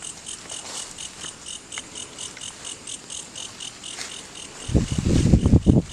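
Insects, likely crickets, chirping in a steady rhythm of about five high pulses a second. Near the end a loud burst of low, rough thudding cuts in for about a second.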